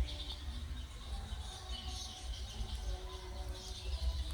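Outdoor nature ambience: faint high-pitched chirping over a steady low rumble.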